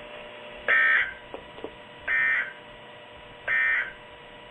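Three short, buzzy digital data bursts from a NOAA Weather Radio receiver, about 1.4 seconds apart. These are the SAME end-of-message code that closes the weekly test broadcast.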